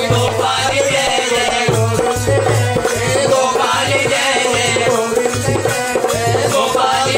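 Devotional bhajan: a man singing to a harmonium's steady reed tones, with low drum strokes and a rattle keeping the beat.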